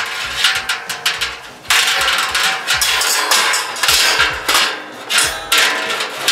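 Round wire cooking grate clattering and scraping against the inside of a Barrel House Cooker's steel drum as it is lowered in and seated: a quick run of metallic clanks and rattles.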